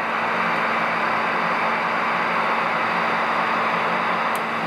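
Connex 3300HP CB radio's receiver hissing steadily with static through its speaker while fed a test signal at about -128 dBm, right at the edge of its sensitivity; the tone is not really audible under the noise.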